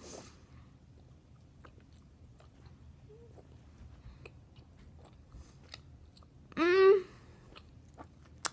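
Wet, soft clicking of a mouth chewing a large wad of three pieces of bubble gum. A short hum with a rising pitch comes about two-thirds of the way through and is the loudest sound, and a single sharp click follows near the end.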